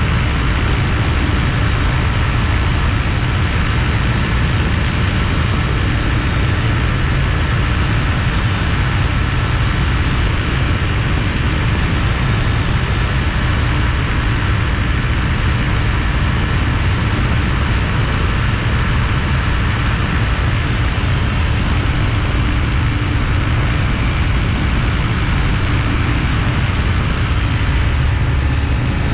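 Weight-shift ultralight trike in cruise flight: its engine runs at a steady drone under heavy wind rushing over the wing-mounted microphone.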